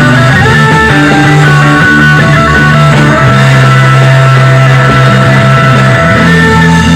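Loud rock music with guitar, built on long held notes over a steady bass.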